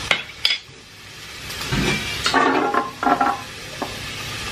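Canned chickpeas and their liquid pouring out of the tin into a stainless-steel colander, splashing and rattling against the perforated metal with a metallic ring. Two sharp clicks near the start come from the opened can being handled before it is tipped.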